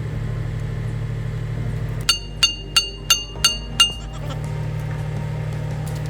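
Six quick metal-on-metal hammer blows on a steel part, about three a second, each ringing briefly, over a steady low hum.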